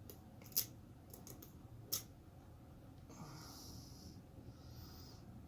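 Small metallic clicks of lock-picking tools working the pins of a pin-tumbler lock, two of them sharp and loud about a second and a half apart. Then a long breath exhaled close to the microphone.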